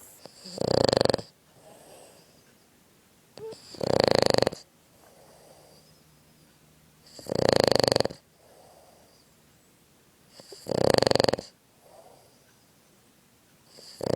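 A sleeping Boston terrier snoring in an even rhythm: four loud snores about three and a half seconds apart, with a fainter breath between each, and a fifth snore starting at the very end.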